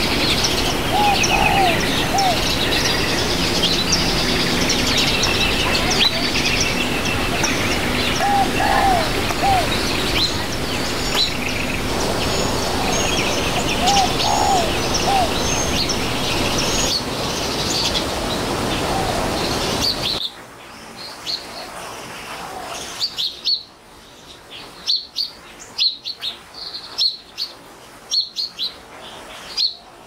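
House sparrows chirping. A dense chorus of chirps over a noisy background, with a lower call repeating every several seconds, gives way suddenly about two-thirds through to separate sharp chirps, a few a second.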